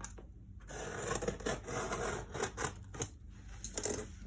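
Scratching and rubbing at parcel packaging as it is worked open, with a few sharp clicks along the way.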